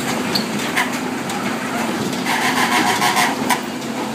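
A kiddie carnival ride with motorcycle seats, running: a steady mechanical rumble with a steady low hum and scattered rattles, loudest about two to three and a half seconds in.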